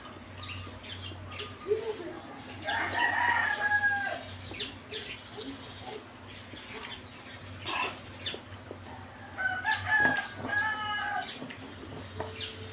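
A rooster crowing twice, one long call about three seconds in that falls away at its end and another near ten seconds, over soft clicks and smacks of someone eating.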